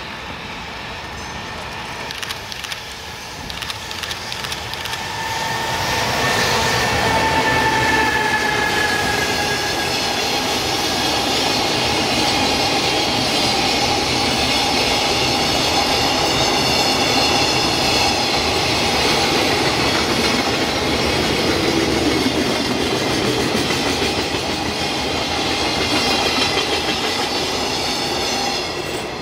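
Electric-locomotive-hauled container freight train passing close by. It approaches faintly, grows loud about six seconds in with a falling whine as the head of the train goes by, then a long string of container wagons clatters steadily over the rails until it drops away near the end.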